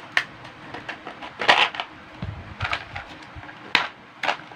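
Clear plastic packaging crackling and clicking as it is pried and torn open by hand, in irregular snaps with the loudest about one and a half seconds in.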